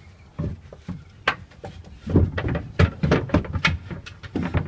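19 mm marine plywood bed boards knocking and scraping against the van floor and frame as they are slotted into place: a run of short wooden knocks, a few at first and coming thick and fast from about halfway through.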